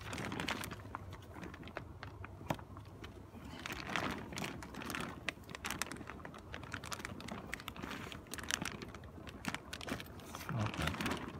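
Coated nylon of a packraft spray deck rustling and crinkling as it is handled, with many irregular light clicks and ticks as a flexible plastic rod is worked into the cockpit sleeve.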